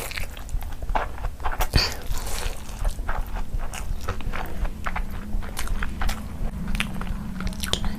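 Close-miked eating: a person biting and chewing food, with irregular sharp wet clicks and smacks of the mouth.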